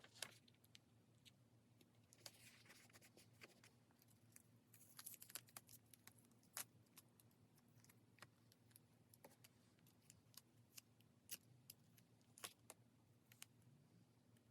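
Faint desk handling sounds from pens and paper: scattered small clicks and taps, with a couple of brief scratchy rustles, over a faint low hum.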